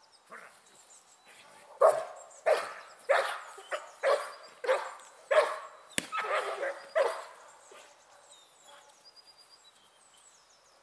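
Young dog barking at an approaching protection-training helper, about nine barks in a quick series that stops after about five seconds. A single sharp crack comes about six seconds in. Faint bird chirps follow.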